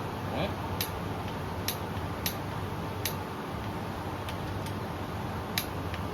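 Click-type torque wrench on an engine's connecting rod bolts: about five sharp, separate clicks at uneven spacing over a steady background hum. The wrench clicks as a rod bolt reaches its set torque.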